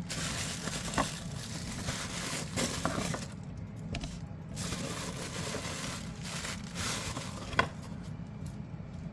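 Unboxing packaging being handled: rustling and crinkling in stretches, with a few light clicks and one sharper click near the end.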